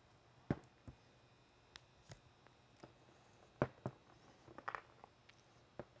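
Scattered sharp clicks and taps from a hand tool and wire being handled while the outer sheathing of a two-conductor 14-gauge power wire is stripped back, with a quick cluster of clicks about three-quarters of the way through.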